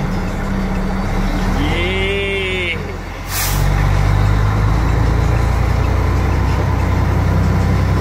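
Sterling truck's Mercedes-Benz diesel engine running in the cab while driving. A brief rising-and-falling whine comes and goes, then a short, sharp hiss of air from the air brake system about three seconds in, after which the engine runs louder for the rest.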